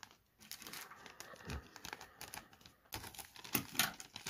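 Thin clear plastic toy bag crinkling and crackling as it is handled, the crackles growing denser and louder in the last second or so.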